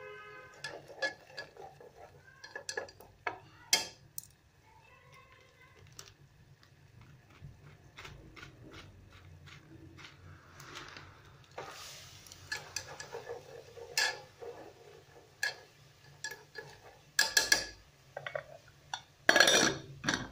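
Chopsticks knocking and scraping against a metal cooking pot in a run of scattered clicks and taps, ending in a louder clatter near the end as the metal lid goes onto the pot.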